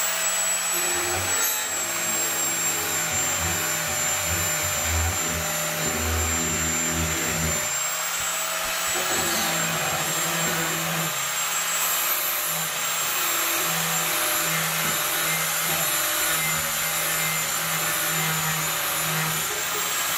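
Stanley angle grinder running continuously, its disc grinding the steel of a rusty knife blade. A steady high motor whine sits over the grinding noise, and the lower hum shifts as the disc is pressed into the metal.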